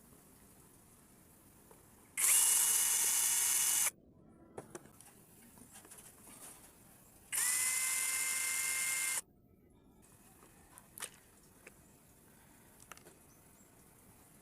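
A small electric power-tool motor runs in two bursts of under two seconds each, a few seconds apart, its whine rising briefly as it spins up and then holding steady. Faint clicks of handling come between and after.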